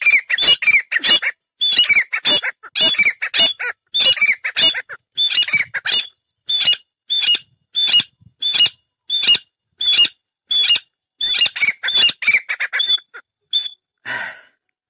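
Caged grey francolins (teetar) calling as decoys to draw wild partridges: a rapid run of sharp, ringing calls, two or three a second, that stops shortly before the end. A brief rustle follows.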